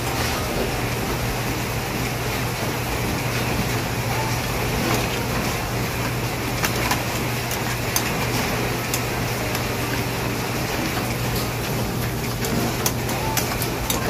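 Steady mechanical hum with an even hiss, like a kitchen fan or appliance running, with a few light clicks in the second half.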